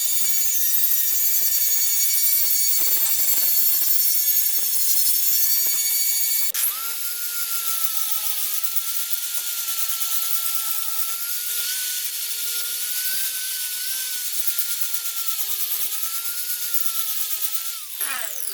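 Angle grinder working on steel railroad track: a steady high whine with a grinding hiss. About six and a half seconds in, the sound shifts suddenly to a lower, wavering motor whine, and near the end the whine falls as the grinder spins down.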